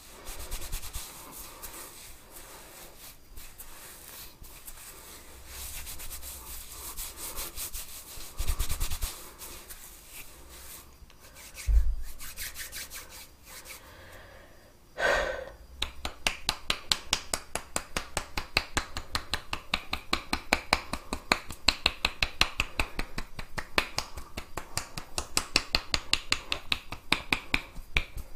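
Hands rubbing and scratching through hair and over a scalp during a head massage, with a short thump partway through. About halfway through this gives way to a fast, even patter of light taps, several a second.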